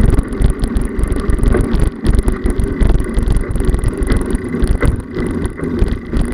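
Wind buffeting the microphone and road rumble from a handlebar-mounted camera on a moving bicycle, with frequent small knocks and rattles from riding over the pavement.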